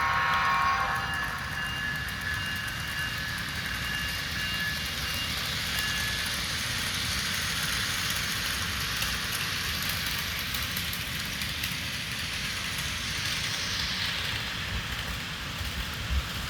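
HO-scale Walthers ES44AC locomotive's DCC sound decoder: a horn blast from its small speaker fades out about a second in. After it comes the steady recorded diesel engine sound, along with the rumble of the model train rolling along the track.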